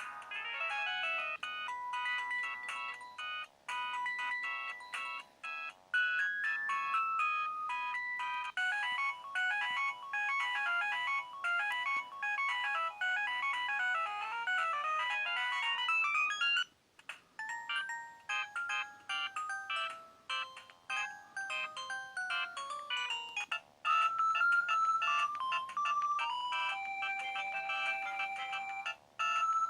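Samsung C300 mobile phone playing its preloaded electronic ringtone melodies through its small built-in speaker. One tune breaks off about sixteen seconds in, and a different tune starts.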